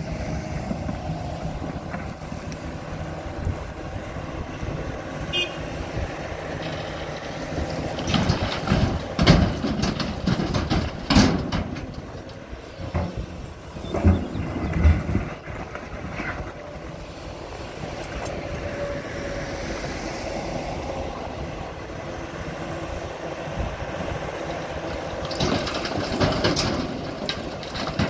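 Volvo EC480 L excavator's diesel engine running steadily under hydraulic load, with loud clattering knocks of broken asphalt chunks as the bucket works the pile and drops its load into a tipper truck. The knocks come in several bursts, about a third of the way in, around halfway and again near the end.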